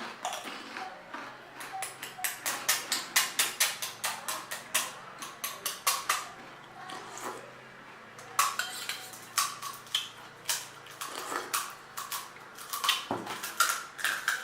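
Close-up pani puri eating sounds: a run of sharp, crisp crunches and clicks of the fried puri shells and tableware, coming in quick clusters of several a second with short pauses between.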